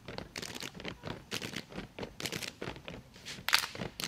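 Gumboot dancers slapping and stamping their rubber boots together, many sharp slaps and stamps in a quick, uneven rhythm.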